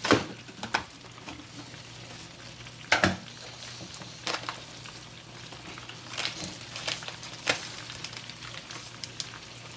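Onions, peppers and mushrooms sizzling in a pot with a few browned chicken pieces, with sharp knocks of a utensil or container against the pot about seven times, the loudest at the start and about three seconds in.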